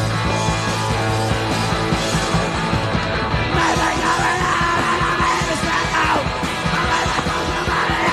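Punk rock band playing live: distorted electric guitar, bass and drums, with a shouted lead vocal coming in about three and a half seconds in.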